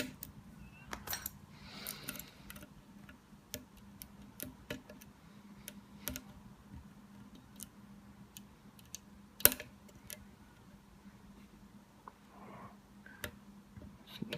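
Light, irregular metallic clicks and ticks of a lock pick working the spool pins of a Burg Wächter Profi padlock cylinder during single-pin picking, with one sharper click about two-thirds of the way through.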